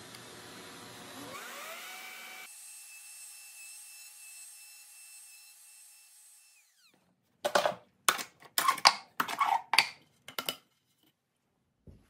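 Router on a Pantorouter, cutting a mortise and then spinning down, its steady whine falling in pitch and dying away about seven seconds in. A quick run of loud, sharp clacks and knocks follows.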